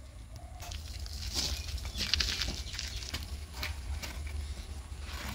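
Hand-lever bucket grease pump being worked: scattered clicks and short hissing squelches of the pump and grease, over a steady low rumble.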